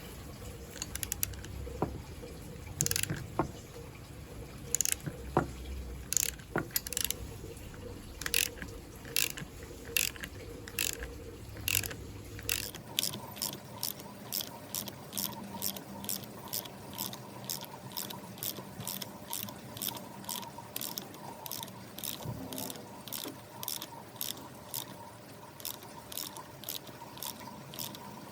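Ratchet clicking as it turns the nut on a threaded bar, pulling a new bush into its housing with sockets and an old bearing race as a puller. The clicks are irregular at first and become quicker and more even from about halfway.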